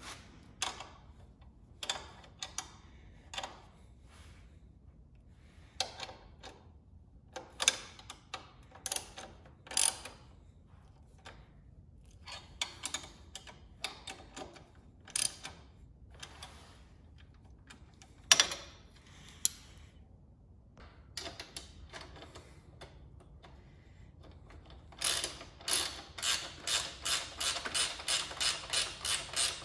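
A 12 mm socket ratchet and wrench on steel bolts: scattered clinks and short bursts of ratchet clicks, then near the end a quick, even run of ratchet clicks, about four a second, as a bolt is tightened.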